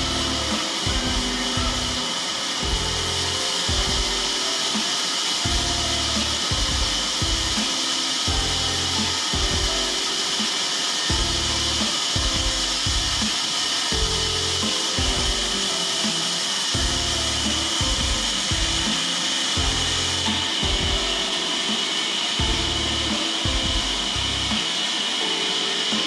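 Band sawmill blade cutting lengthwise through a large log, a steady hiss of the saw in the wood, with background music and a bass beat underneath.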